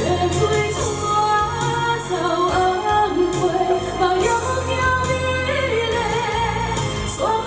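A woman singing a Chinese pop song with a wavering vibrato on held notes, over an instrumental accompaniment.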